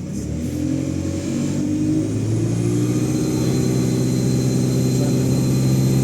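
ADL Enviro200 bus's diesel engine pulling under acceleration, its note growing steadily louder. A high turbocharger whine rises in pitch about two seconds in and then holds.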